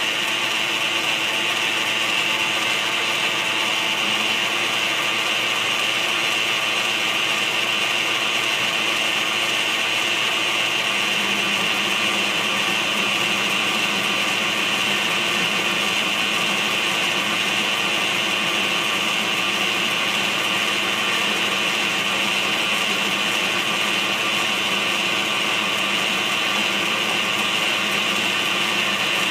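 Metal lathe running steadily, spinning a starter-motor armature while a final cleanup pass is taken over it.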